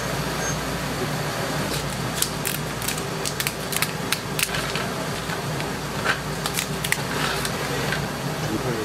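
Kitchen scissors snipping and cracking through cooked king crab shell: a run of short, sharp clicks and crunches over a steady background hum.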